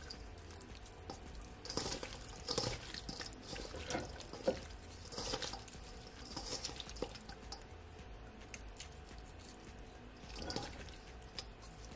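Soft, irregular wet squishing and slithering as hands rub seasoning into small raw sprats in a stainless steel bowl, with occasional light clicks of fish and fingers against the bowl.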